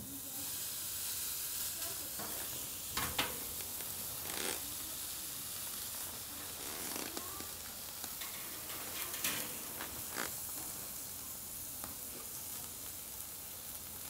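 Meat sizzling on a charcoal fire-pit grill, a steady hiss with a few light clicks.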